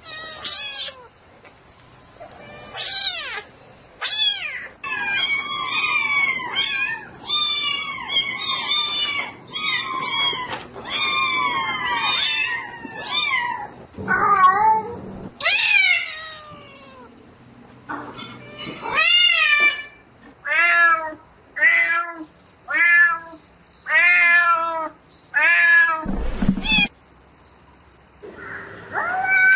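Cat meowing over and over, calling for a mate: pitched meows that rise and fall, a rapid run of them in the first half, then shorter meows about one a second near the end.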